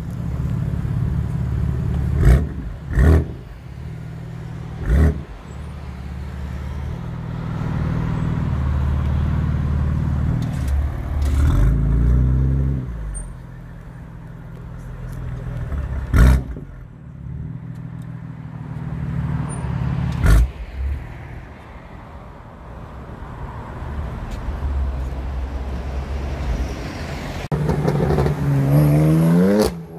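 BMW M4's twin-turbo straight-six idling and revving, with several loud, sharp bangs. Near the end it accelerates hard, its pitch rising steeply.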